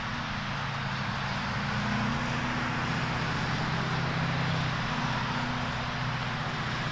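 A steady, low engine hum with a steady hiss over it.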